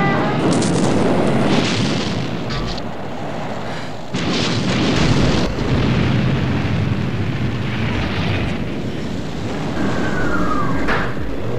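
Film explosions over a continuous rumble of fire and blasts, with several big surges, the strongest about four seconds in. Near the end a short falling tone sounds.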